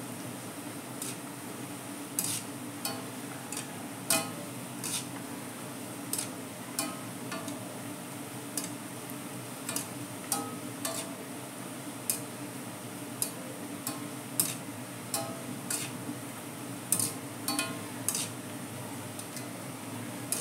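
Sliced onions sizzling steadily in hot oil in an iron kadhai while a wire-mesh spider strainer stirs them, its metal rim clinking against the pan irregularly, about one to two times a second. The onions are being deep-fried into birista.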